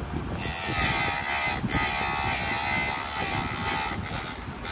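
Electric chain sharpener running with a steady whine as it sharpens a chainsaw chain. The whine starts about half a second in and briefly drops out twice.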